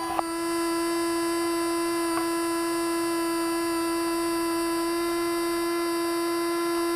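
Small electric water pump on an RC fire truck running with a steady whine while it pumps pond water out through the nozzle. A sharp click about a quarter second in.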